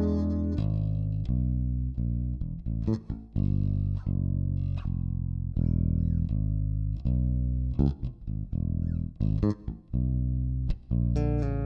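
Ansir electric bass guitar played solo: a run of held low notes mixed with short, sharp percussive plucked notes.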